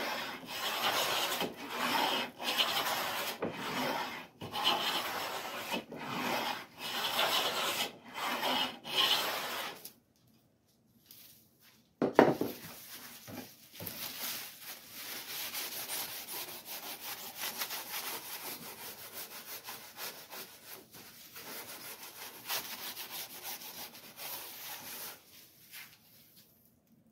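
Ovolo molding plane cutting a cherry molding in a run of about ten hissing strokes, roughly one a second. After a short pause comes a single sharp knock, then a long stretch of fast rubbing as the molding is burnished with a handful of wood shavings.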